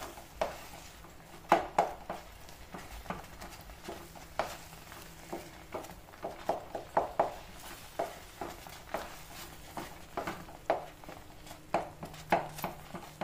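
Wooden spatula stirring and pressing thick semolina kesari in a non-stick pan: irregular scrapes and soft knocks of wood against the pan as the lumps are broken up.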